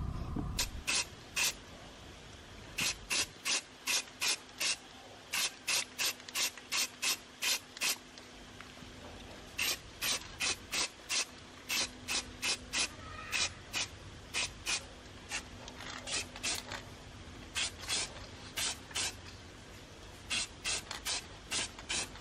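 Aerosol spray-paint can sprayed in short bursts, two or three a second, in runs of several with brief pauses between.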